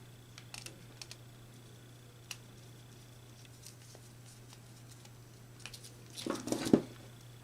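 Scattered faint clicks and handling noise of hands wiring a relay terminal, with a louder burst of clattering near the end, over a steady low hum.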